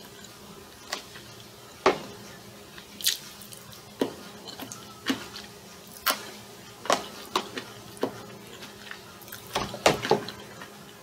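A person eating with a fork: short, sharp clicks and crunches about once a second, coming a little faster near the end.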